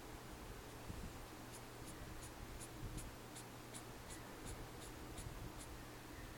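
Felt-tip marker scratching on paper in quick short strokes, about three a second, a dozen in a row beginning about a second and a half in, as short radiating lines are drawn.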